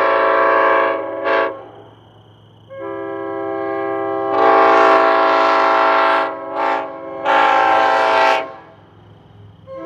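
Multi-chime locomotive air horn blown in a run of blasts: a long blast with a short toot, a pause, then a blast that comes in softer and swells louder, another short toot and a final long blast.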